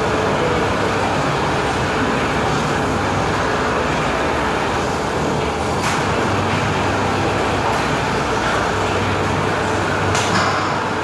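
Steady gym background noise: an even rumble and hiss with a faint low hum, and one sharp click about six seconds in.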